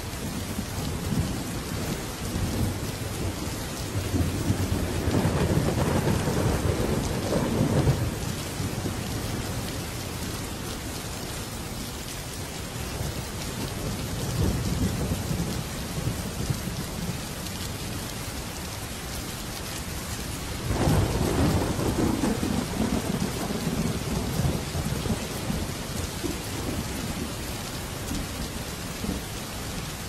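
Steady rain with two long rolls of thunder, one building from about four seconds in and one starting suddenly past the middle and slowly fading.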